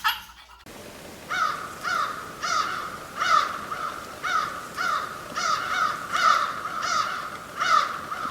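A series of about a dozen evenly spaced turkey yelps, roughly two a second.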